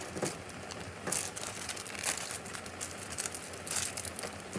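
Plastic noodle sauce sachets crinkling as they are torn open and squeezed out, in irregular short crackly bursts.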